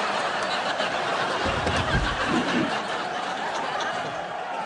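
Audience laughing over a steady crowd din, with a few dull thumps about one and a half to two seconds in.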